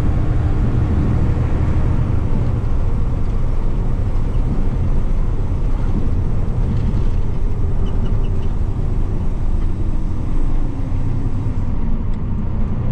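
Diesel box truck driving, heard from inside the cab: a steady low engine and road rumble.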